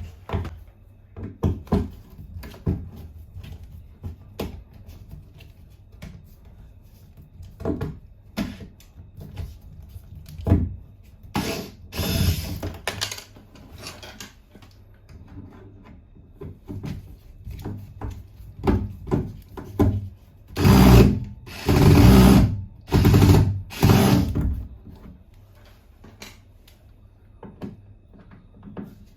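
Hand-tool work on a bathroom faucet: scattered knocks and clanks of tools and metal fittings. Loud bursts of noise about a second long come once near the middle and four times in quick succession about two-thirds of the way through.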